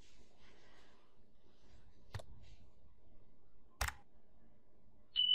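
Two sharp computer mouse clicks, one about two seconds in and a louder one near four seconds, over faint background hiss. A steady high beep starts right at the end.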